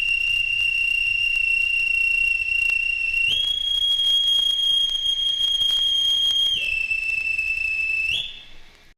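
A steady, piercing whistle tone. It steps up to a higher pitch about three seconds in, drops back down near seven seconds, jumps up again just after eight seconds, then fades out.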